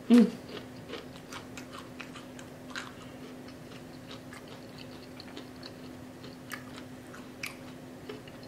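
Mouth-closed chewing of a crispy fried catfish fillet: soft crunches and small wet clicks scattered throughout. A short, loud hum of the voice comes right at the start, and a faint steady hum runs underneath.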